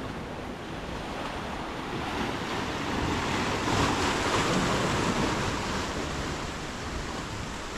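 Sea waves breaking and surging against rocks, a continuous rush that swells to a peak about halfway through and then eases off.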